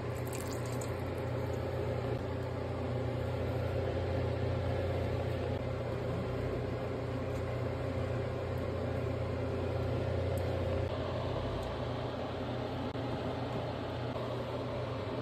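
Steady low mechanical hum, with a faint steady higher tone over it.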